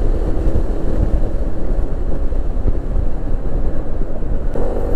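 Riding noise from a Yamaha NMAX scooter on the move: steady wind rush on the microphone over the single-cylinder engine and tyre rumble. Near the end, a steady engine hum comes through clearly.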